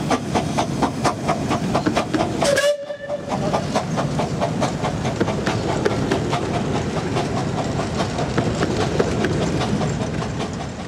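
A 15-inch gauge steam locomotive pulling away with its train, its exhaust beating quickly and evenly, with a short whistle toot about two and a half seconds in. The rumble and clatter of the passenger carriages rolling past follows.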